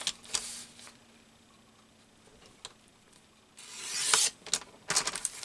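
Paper trimmer blade drawn along a sheet of paper, a swish that builds about three and a half seconds in and stops suddenly, with paper rustling and light taps around it.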